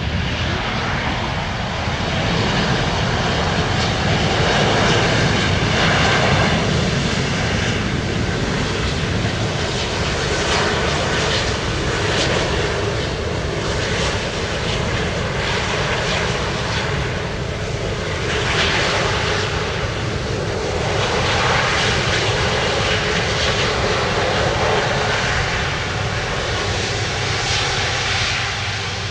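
Airbus A330-200 jet engines (Rolls-Royce Trent 700s) running as the airliner rolls out along the runway after landing. It is a loud, steady rush of jet noise that swells and eases several times.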